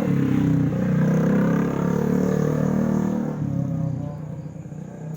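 Loud, bass-heavy music from a large mobile sound system rig, its low notes dense and steady, dropping back sharply about three and a half seconds in and then fading.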